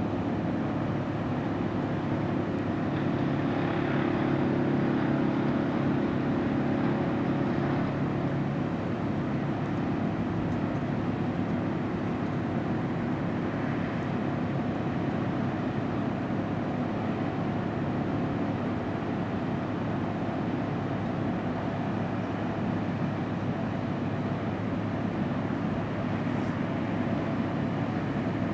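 Steady low drone of distant engine noise, a little stronger for a few seconds near the start.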